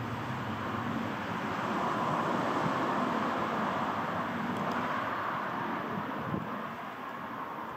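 Distant pair of Class 66 diesel-electric locomotives with their two-stroke EMD V12 engines, hauling a freight train towards the listener: a steady rush and rumble that swells about two seconds in and then eases slightly. Gusts of wind on the microphone.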